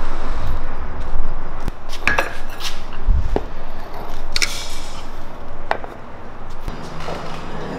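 Scattered metallic clinks and knocks from a loose steel drive shaft carried by hand, its universal joint and yoke rattling. A low steady hum comes in near the end.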